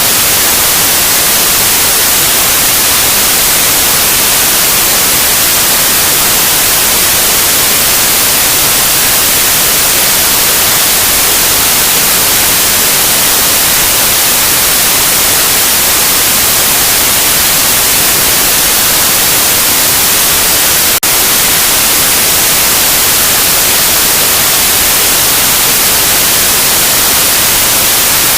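Loud, steady white noise, an even hiss with no tones or rhythm, with a very brief dip in level about three-quarters of the way through.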